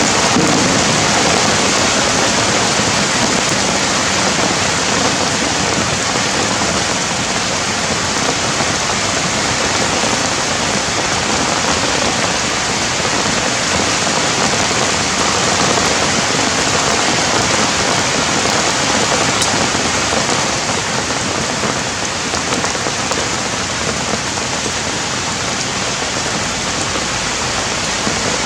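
Steady rain falling, an even, continuous hiss that neither builds nor fades.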